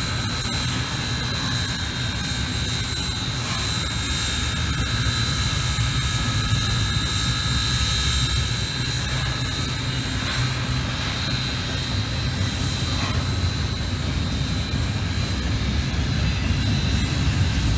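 Double-stack intermodal freight train rolling past: a steady rumble of steel wheels and well cars on the rails, with a thin, steady high-pitched tone over it.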